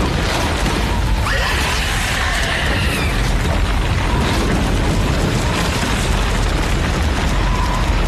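Continuous deep rumbling roar of a film sound effect: the ground tearing open into a pit, the cage being opened. A thin high whine rises over it about a second in and fades a couple of seconds later.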